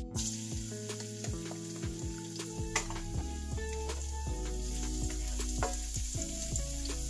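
Minced garlic sizzling steadily in hot cooking oil in a frying pan, the hiss starting suddenly as the garlic hits the oil.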